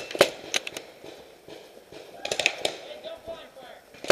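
Paintball gunfire: sharp pops in a quick run of about four in the first second, a fainter scatter around two and a half seconds in, and another loud pop at the end.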